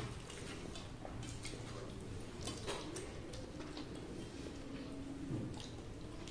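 Soft scattered clicks and wet squishes of fingers mixing rice with dal on steel plates, faint and irregular.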